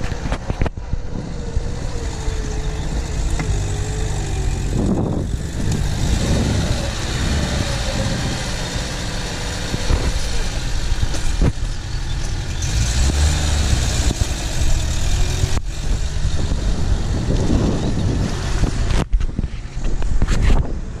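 Lada Niva driving on a dirt track, its engine running under a steady rumble of tyres and wind on the microphone, with a wavering whine in the first few seconds. The sound breaks off abruptly a few times.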